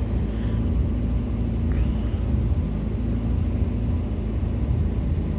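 Rheem heat pump water heater running steadily, a low hum and rumble. It is working in near-freezing air with its freeze sensors removed, so it keeps making warm water while its core freezes over.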